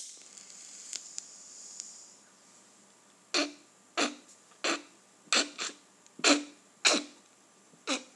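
A lighter is flicked and a soft hiss follows while a pipe bowl is lit. From about three seconds in, a man coughs about eight times in quick, separate coughs, choking on the smoke.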